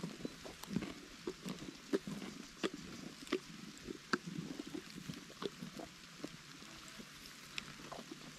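Donkey chewing watermelon and grass close by: irregular crunches, roughly one or two a second.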